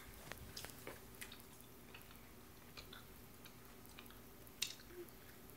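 Faint wet chewing of a chewy sour gummy candy, with scattered soft mouth clicks and one sharper click about four and a half seconds in.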